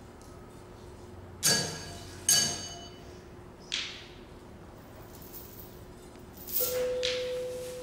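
Sparse found-object percussion: two sharp strikes on small objects that ring on with several high overtones, about a second and a half in and again just under a second later, then a softer strike near four seconds. Near the end a further sound starts and holds a steady ringing tone.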